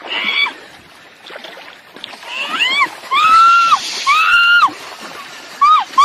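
A woman giving a series of high-pitched whining squeals. Each cry rises, holds and drops, with two long drawn-out cries in the middle and a short one near the end, after a brief burst of noise at the start.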